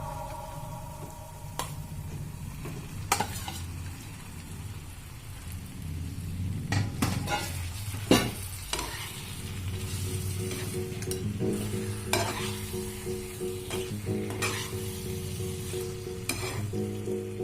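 Food frying and sizzling in a cooking pot while it is stirred, the spoon knocking against the pot every second or few.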